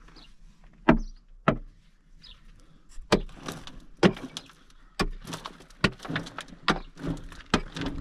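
A series of sharp knocks, roughly one a second at uneven spacing, with rough scraping in between.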